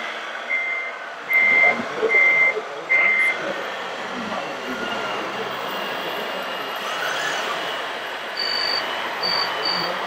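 Electronic reversing beeper of a radio-controlled scale construction model, beeping steadily about every three quarters of a second and stopping about three seconds in. Near the end a second, higher-pitched reversing beeper starts up, over steady background noise.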